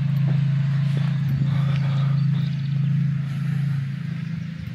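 Steady low drone of a running motor, with no rise or fall in pitch, easing slightly near the end.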